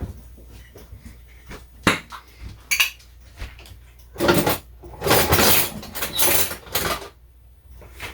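Kitchen dishes and cutlery being handled: a few sharp clinks, then several longer, louder scraping, rustling sounds between about four and seven seconds in.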